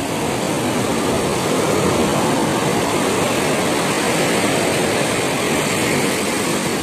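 Surf breaking and washing up a sandy beach: a steady rush of waves with no single breaker standing out.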